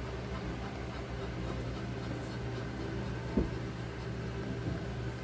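A steady low mechanical hum, with faint rustling of hands on a towel and one short knock about three and a half seconds in.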